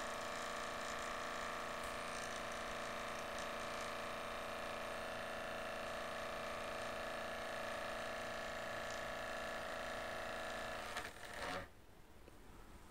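Laptop cooling fan running with an abnormal whirring drone of several steady tones, a friction-and-vibration noise from a fan that has started to catch. It stops about eleven seconds in when the machine is switched off.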